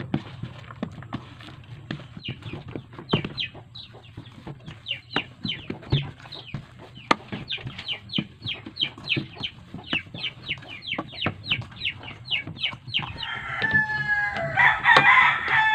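Chickens calling: a run of short, quick falling chirps, about four a second, then a rooster crowing loudly near the end.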